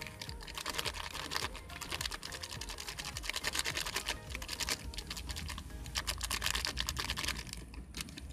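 Thin plastic packet crinkling in the hands as it is squeezed and shaken, a dense run of small crackles.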